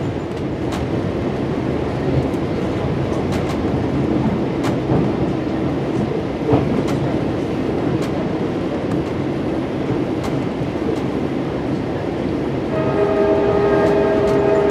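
Passenger train rolling, with a steady rumble and scattered wheel clicks over rail joints, heard from inside the first car behind the locomotive. Near the end, the EMD F59PHI locomotive's Nathan K5LA five-chime air horn starts sounding and holds a steady chord.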